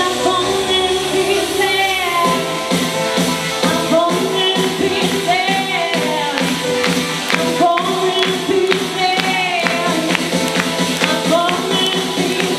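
A woman singing live into a handheld microphone over accompanying music with a steady beat.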